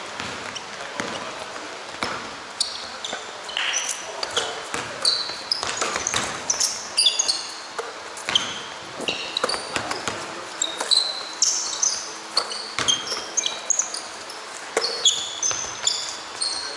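A basketball bouncing and thudding on an indoor court, with many short high-pitched squeaks of sneakers on the floor as players move.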